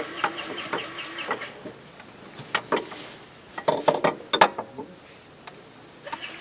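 Sharp metallic clicks and clanks of tools or fan parts being handled, loudest in a cluster around the middle, over a faint fast ticking.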